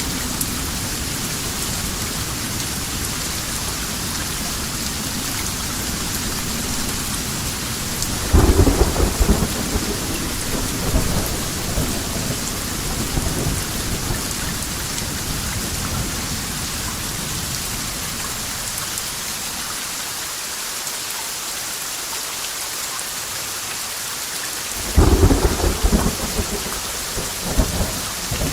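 Steady rain falling, with two rolls of thunder: one rumble about eight seconds in, and another starting near the end.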